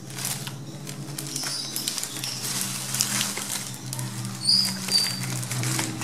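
Lovebirds shifting and fluttering inside a wire shipping cage as it is handled, with irregular rustling and light knocks. Two short high chirps near the end.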